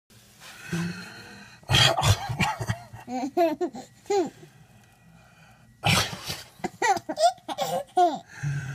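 A man sneezes twice, a loud burst about two seconds in and another about six seconds in, and after each a baby breaks into a run of high-pitched giggles.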